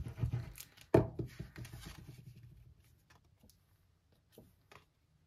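Paper crafting handling noises: a sharp knock about a second in, then soft rustling of card stock and a few light taps that die away.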